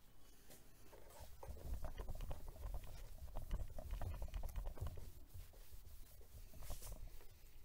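Faint irregular rubbing and scratching of hand sanding on a plastic headlight lens, with small ticks and handling knocks.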